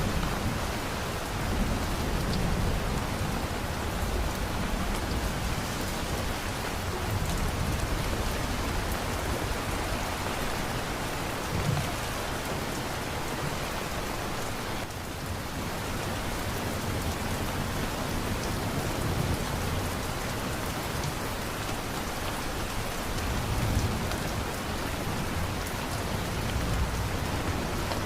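Heavy rain falling steadily, with low rumbles of thunder swelling and fading underneath.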